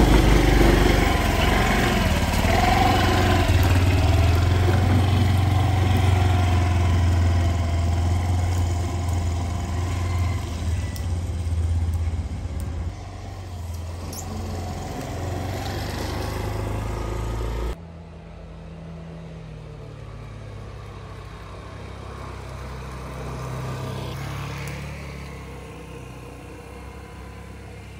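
Motor scooter engine running as it pulls away, a steady low drone that drops suddenly about two-thirds of the way through to a fainter engine hum as the scooter rides off.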